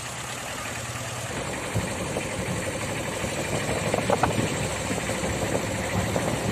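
A vehicle's engine running steadily, a constant low hum under general noise.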